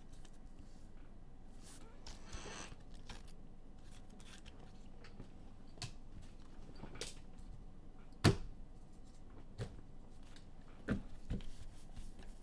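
Trading cards being handled on a table: scattered clicks and taps, a short brushing swish about two seconds in, and a sharper knock just past eight seconds as something is set down.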